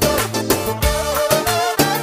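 Music with a steady, heavy beat and a melody line held above it.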